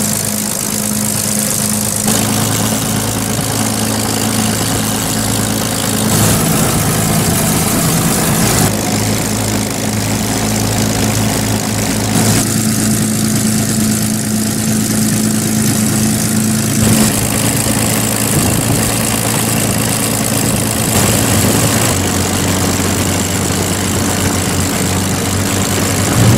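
De Havilland Mosquito's twin Rolls-Royce Merlin V12 engines running at low taxiing power, heard from inside the cockpit as a steady drone. The tone changes abruptly several times.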